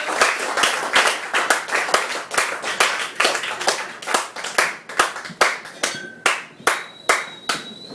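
Audience applauding after a reading. The claps are dense at first, then thin out to a few scattered claps toward the end.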